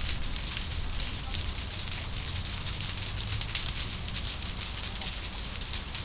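Storm rain pattering steadily, a dense crackle of drops, over a low rumble of wind buffeting the microphone.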